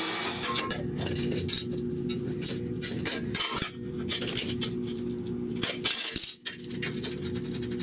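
Steel locking clamps clinking and clattering as they are picked up and handled, with irregular sharp metal clicks and knocks against a steel-tube frame.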